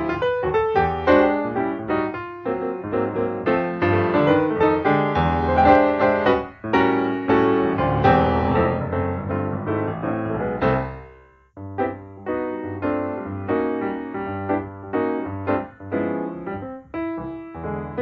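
Background piano music with a steady run of notes. It fades out to a brief pause about two-thirds of the way through, then picks up again.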